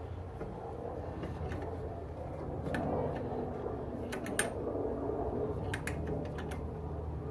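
Scattered sharp metal clicks and clinks of a C-clamp being worked to press a brake caliper piston back into its bore, over a steady low hum.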